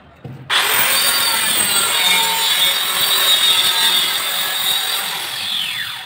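Electric power tool running: it comes on about half a second in with a rising whine, runs with a loud, even rushing noise, and winds down with a falling whine near the end.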